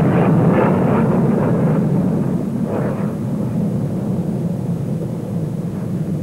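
Handley Page Victor jet bomber's engines rumbling with a rushing jet noise as it flies past and banks away, the sound slowly fading.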